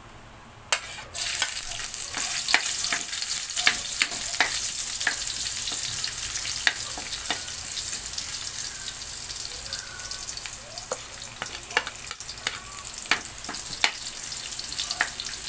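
Ginger strips hitting hot oil about a second in and sizzling steadily in the pan, with frequent crackling pops as a spatula stirs them.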